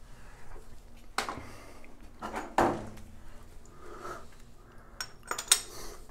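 Metal shower slide bar clinking and knocking against ceramic wall tile as it is handled and positioned: several sharp metallic clinks, the loudest near the end.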